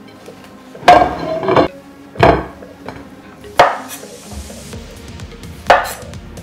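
A few sharp knocks of kitchen work: a ceramic plate set down on a wooden table, then a knife chopping through a zucchini onto a bamboo cutting board, five knocks in all, over soft background music.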